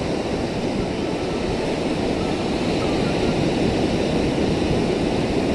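Steady rushing of sea surf breaking on a rocky reef shore, mixed with wind.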